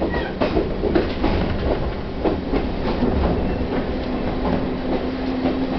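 Chichibu Railway 1000-series electric train running, heard from inside the carriage: a steady rumble with wheels clicking irregularly over rail joints. A steady hum comes in about four seconds in.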